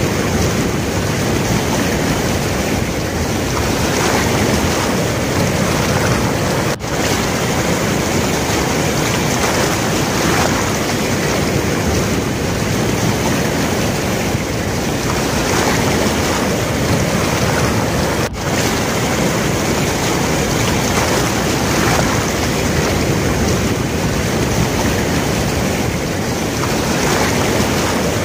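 Steady, loud rushing noise of wind on the microphone mixed with the flooded river's water, with no pitched sound in it. The sound cuts out for a split second twice.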